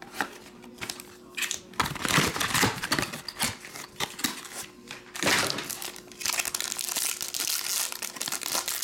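Foil wrapper and packaging of a trading card box crinkling and tearing as it is opened by hand, in irregular bursts that are loudest about two seconds in and again about five seconds in.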